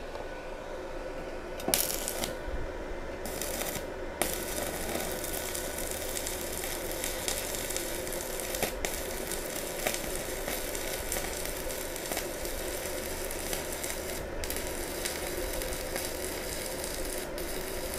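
Stick-welding arc from a NANYA ARC 200 inverter welder crackling and sizzling as a 2.5 mm electrode runs a bead on thin square steel tubing, the current turned down a little to avoid burning through. The arc strikes about two seconds in, sputters briefly, then burns steadily with a couple of short breaks.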